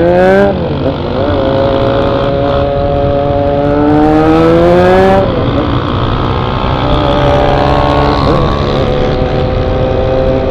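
Honda XR 250 Tornado's single-cylinder engine accelerating from a stop through the gears. The revs climb and fall sharply at an upshift about half a second in. They climb again for several seconds and fall at another shift about five seconds in, then hold fairly steady with a brief dip near eight seconds.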